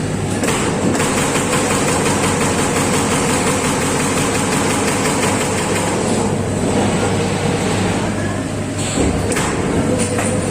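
Amada Pega 357 CNC turret punch press running, with a steady machine hum. For several seconds in the middle it fires a fast, even run of punch strokes into sheet stainless steel.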